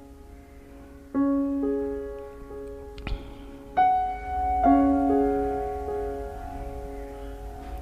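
Slow, soft piano background music, single sustained notes and chords struck about every second and left to ring. A brief knock about three seconds in.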